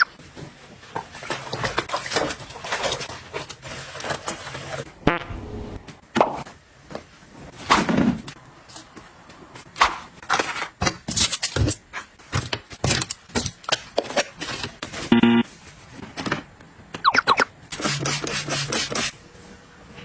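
Household objects being handled: a string of sharp taps, clicks and knocks with short spells of rustling and scraping, and a brief ringing, pitched tone about fifteen seconds in.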